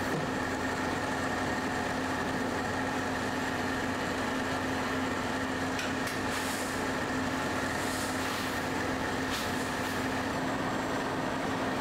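Electroplating line machinery running: a steady mechanical hum with a low tone and a higher steady whine from the hoist and barrel-drive motors. A few brief hisses come in about halfway through.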